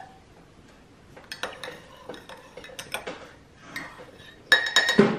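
Dishes and cutlery clinking and clattering in a kitchen: scattered light clicks, then a quick run of loud, ringing clinks near the end.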